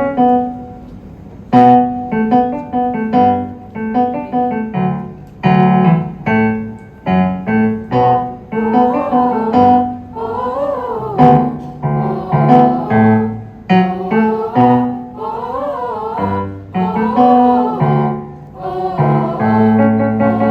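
A song: piano chords struck in a slow rhythm, with a singing voice joining about eight seconds in and holding notes with a wavering pitch.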